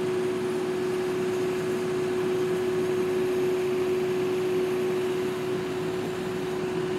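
Steady drone inside the cab of a Fendt Rogator 932 high-clearance applicator on the move: an unchanging hum with one constant tone over a bed of noise.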